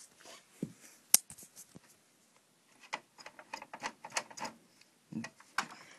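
Scattered clicks and knocks of plastic and metal computer parts being handled inside a desktop computer case. There is one sharp click a little over a second in, and a quick run of clicks in the second half.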